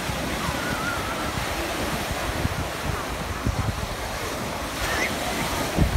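Surf breaking and washing onto a sandy beach, with wind buffeting the microphone in gusts, strongest about three and a half seconds in and just before the end.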